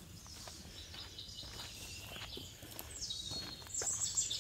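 Footsteps on a dirt trail through the woods, with birds calling in the trees; the high calls grow louder near the end.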